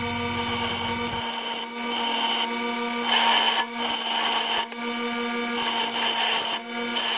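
Bench grinder running with a steady hum while a small black iron pipe cap is pressed against the wheel to round off its edges. The grinding rasp swells and fades several times as the piece is pushed on and eased off.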